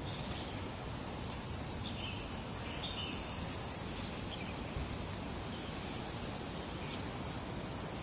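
Steady outdoor background noise, an even hiss and rumble, with a few short high bird chirps near the middle.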